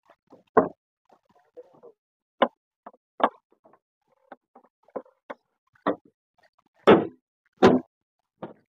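A Suzuki Wagon R's door and fittings being handled: a dozen or so short irregular clicks and knocks, with two louder thuds near the end.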